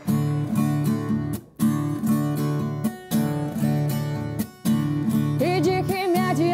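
Strummed acoustic guitar playing the intro of a sertanejo (caipira) song in a steady rhythm, with three short breaks. A singer's voice comes in over it near the end.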